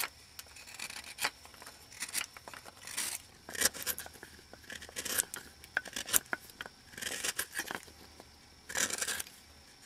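Small turner's gouge paring across the bowl of a lime-wood spoon held in the hand, a series of short, crisp cuts, each lifting a small chip, coming at uneven intervals about once a second.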